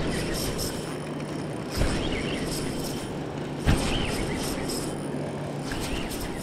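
Spinning reel being cranked: a whir of gears with rapid light clicks, and two sharp knocks about two and four seconds in.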